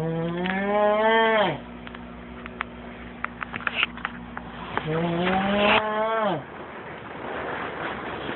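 A sleeper snoring with a drawn-out, bleating moan on the breath, like a dying goat. There are two calls, one at the start and another about five seconds in. Each rises a little, holds for about a second and a half, then slides down and stops, with a few faint clicks between them.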